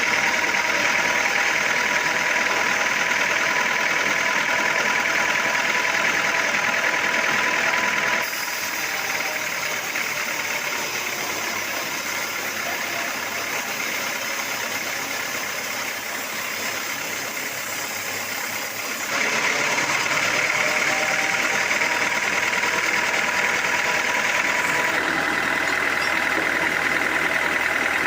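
Sawmill machinery running steadily, a loud mechanical drone with a high whine. It shifts abruptly to a quieter sound about a third of the way in and back again after about 11 seconds.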